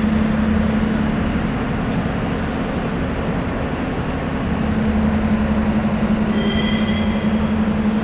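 Steady background drone: a constant low hum under an even hiss, with no break in it.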